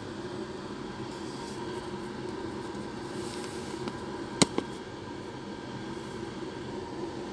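An iPhone 12 Pro Max being lifted out of its box, giving two sharp clicks a fifth of a second apart about four and a half seconds in, over a steady room hum.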